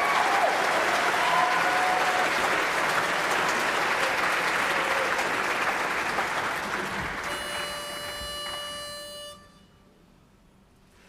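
Audience applause dying away, and as it fades a pitch pipe sounds one steady note for about two seconds to give the chorus its starting pitch, followed by a short hush.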